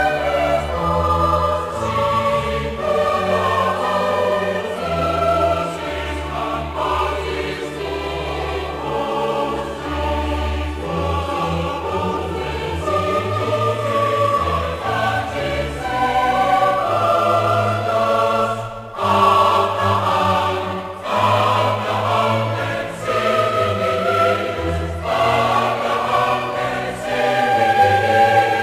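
Choral music: a choir singing long held notes over a low sustained accompaniment.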